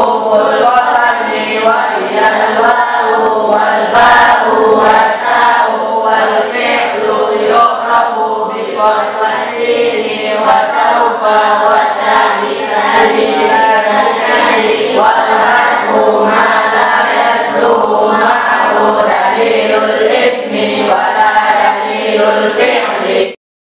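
A group of male and female voices chanting together in unison, the sing-song recitation of an Arabic grammar lesson, led over a microphone. It cuts off abruptly near the end.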